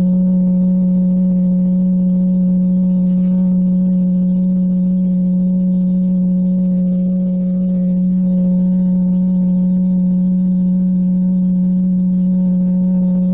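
Sci-fi sound-design drone: a constant light hum, a steady low tone with fainter higher overtones that holds level throughout.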